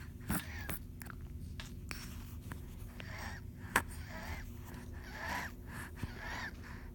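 Six-month-old baby breathing with a wheeze: a run of noisy, raspy breaths with small voice-like sounds. There is a sharp click near the middle.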